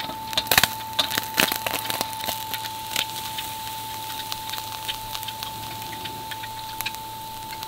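Sharp pops and crackles from the grill and cooking fire, thick in the first three seconds and then sparse, over a faint steady high tone.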